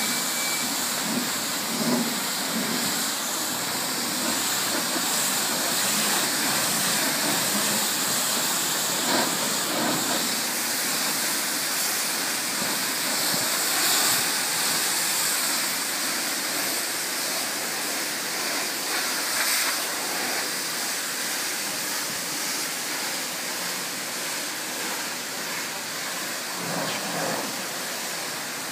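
High-pressure water jet from a self-service car-wash lance hissing steadily as it sprays against the side of a bus, rinsing off foam.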